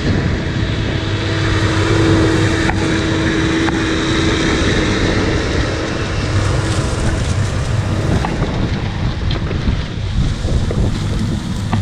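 Case Maxxum tractor's diesel engine working steadily under load as it pulls a 56-disc harrow past, with the disc gangs cutting through the soil. Wind buffets the microphone.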